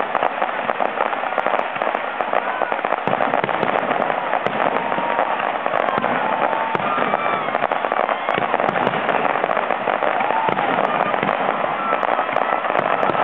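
Fireworks display going off steadily, a dense run of crackling and popping without a break.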